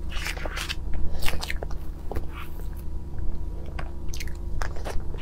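Close-miked eating sounds over strawberry crepe cake: soft chewing and mouth noises, with a metal fork cutting through the cake's layers and clicking and scraping on the plate. They come as scattered short clicks and scratches, busiest in the first second and a half and again a little after four seconds in.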